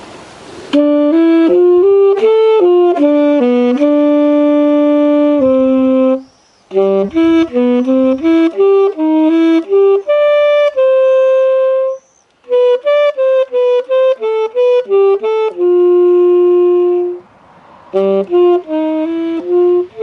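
Solo saxophone playing a slow, unaccompanied melody. It moves note by note in phrases, each ending on a long held note, with short pauses between phrases.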